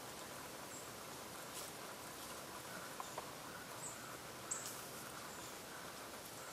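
Quiet outdoor ambience: a steady faint hiss, with a few soft clicks and brief, faint high chirps in the middle.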